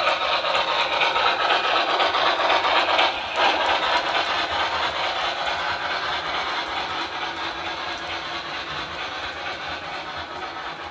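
O scale model freight cars rolling along the layout's metal track, a steady rumbling clatter of wheels on rails, loudest in the first few seconds and slowly fading as the train moves on.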